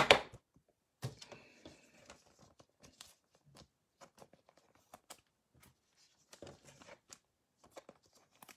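Glossy trading cards handled by hand: a sharp tap at the very start, then soft slides, rustles and small clicks as cards are shuffled off the front of the stack one after another.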